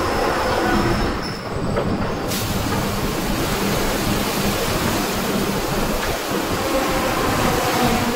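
Steady rumble and hiss of tannery machinery such as wooden tanning drums and their motors, running continuously. The noise dips briefly and shifts slightly about two seconds in.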